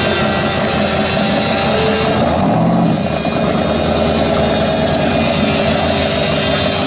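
Engine of a Willys coupe hot rod running loud with a rapid, pulsing exhaust note as the car drives slowly past.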